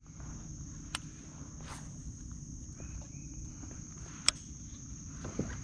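Steady, high-pitched insect chorus of crickets, over a low rumble, with two sharp clicks about a second and four seconds in.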